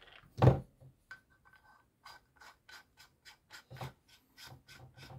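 Plastic parts of a soldering microscope being handled and fitted together as its LED lamp is mounted: a knock about half a second in, then a quick run of light ticks and scrapes, about five a second.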